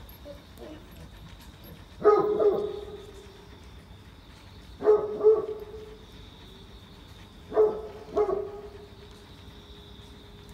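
Great Pyrenees barking in deep woofs: one about two seconds in, then two quick pairs a few seconds apart, each bark trailing off with a short echo.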